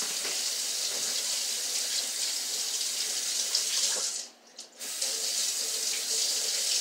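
Kitchen sink tap running as hands are washed with soap under the stream; the water stops for about half a second a little after four seconds in, then runs again.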